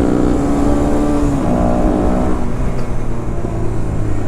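Motorcycle engine running steadily while riding, with low wind rumble on the microphone. A second, higher engine tone joins in for about a second, partway through.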